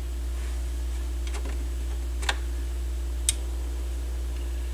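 Dual CS 530 turntable playing through the amplifier with a steady low electrical hum, broken by a few sharp clicks about a second apart, like surface ticks from the test record. The hum points to a grounding or connection fault, which the owner suspects may be a dirty connection at the headshell.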